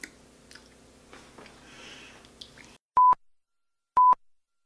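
Faint room tone with a few small clicks, then the sound cuts to dead silence broken by two short, pure electronic beeps a second apart, like a countdown.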